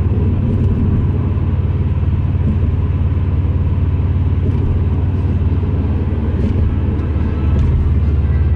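Steady low rumble of a car driving on an expressway, as picked up by a dashboard camera inside the car: engine and tyre noise.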